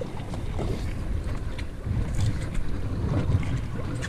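Wind buffeting the microphone and water sloshing against a boat's hull as a steady low rumble, with a few faint clicks.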